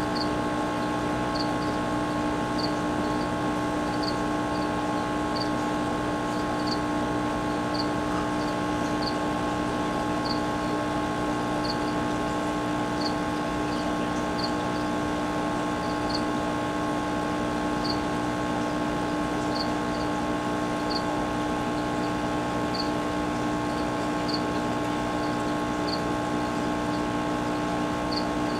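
Steady machine hum with several constant tones, and short high-pitched chirps repeating irregularly about once a second over it.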